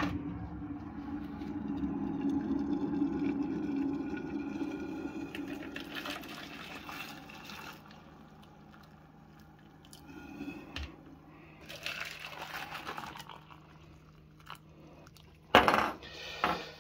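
Just-boiled water poured from a kettle into plastic measuring jugs, a steady splashing pour that tails off after about eight seconds. A few sharp knocks follow near the end.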